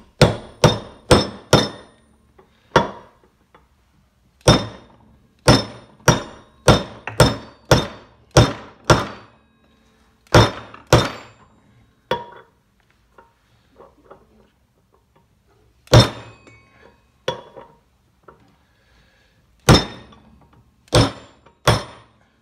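Hammer blows on a 19 mm impact socket, driving a new wheel bearing into a dirt bike wheel hub. About two dozen sharp metallic strikes, each with a short ring, come in quick runs of a few a second with pauses between them.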